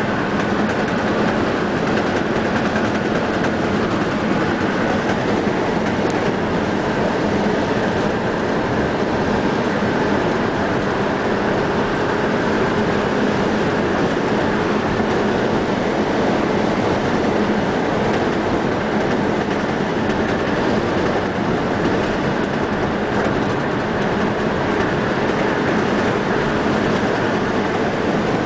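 Steady cabin noise of a car cruising along a highway, tyres and engine running at an even speed, with a low steady hum, heard from inside the car.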